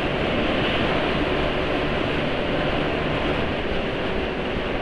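Yamaha NMAX scooter under way on the road: steady engine and wind noise from the moving bike.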